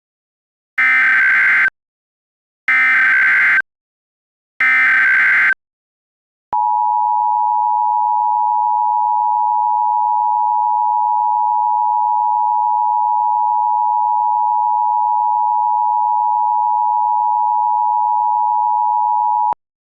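Emergency Alert System tones: three short screeching bursts of SAME header data, each about a second long, then the steady two-tone EAS attention signal held for about 13 seconds before it cuts off near the end.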